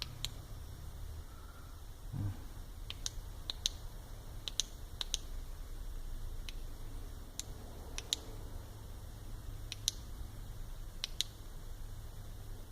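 Sharp clicks of a tactical flashlight's tail switch, pressed about a dozen times at uneven intervals, often in quick pairs, as the light is cycled through its modes.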